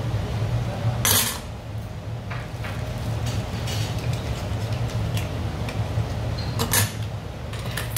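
Metal chopstick clicking and scraping against a steamed oyster's shell while picking out the meat, with two sharper clinks, about a second in and near the end. A steady low hum runs underneath.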